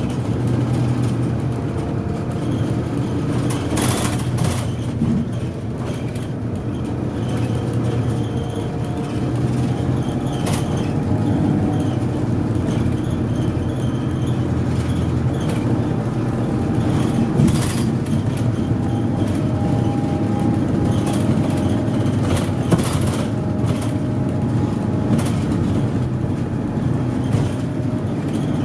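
Inside a Kanto Railway community bus under way: a steady engine drone and road noise. Several short rattles or knocks from the cabin stand out, about four seconds in, near the middle and toward the end.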